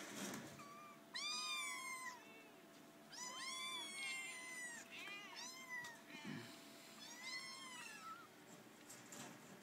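Kittens meowing: a string of about seven high-pitched meows, some short and some drawn out.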